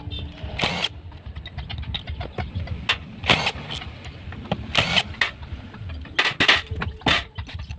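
Irregular clicks and knocks of metal tools and engine parts being handled during motorcycle engine assembly, a dozen or so sharp strikes spread unevenly, the loudest about three seconds in.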